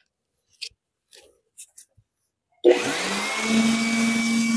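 Handheld 700 W electric air blower switching on about two and a half seconds in. Its motor whines up to speed, then runs steadily with a strong rush of air.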